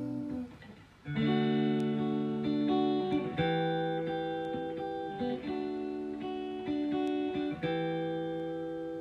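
Guitar playing an instrumental interlude of ringing chords, changing every second or so. It comes in about a second in, just after the tail of a held sung note fades.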